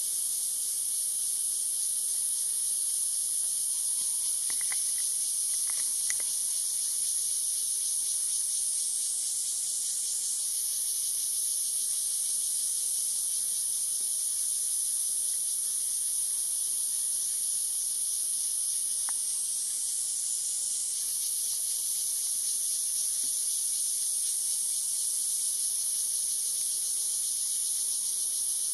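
Dense insect chorus, a steady high-pitched hiss-like drone that does not let up. A few faint ticks come through under it, twice early and once past the middle.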